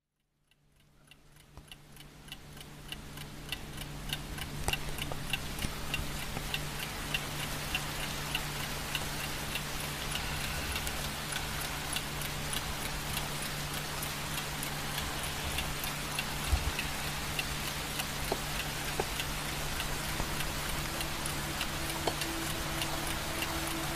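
Even, regular ticking, about two ticks a second, over a steady hiss and a low hum. It fades in over the first few seconds, and a held musical tone comes in near the end.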